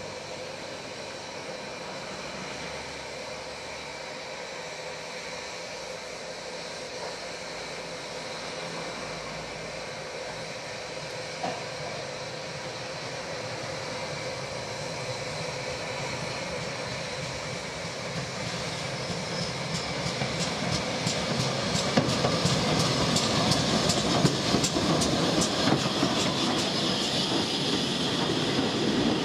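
Steam locomotive No 6960 'Raveningham Hall', a GWR Modified Hall 4-6-0, approaching and passing close with its train. It grows steadily louder, and a fast, even clatter sets in during the last ten seconds as it comes alongside.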